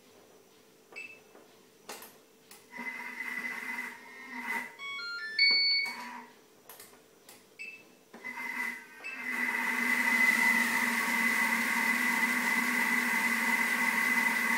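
Thermomix food processor being set. First come short beeps and clicks as its buttons and dial are worked, and its motor starts and stops briefly. From about nine seconds in the motor runs steadily with a whine as the butterfly whisk creams butter and sugar.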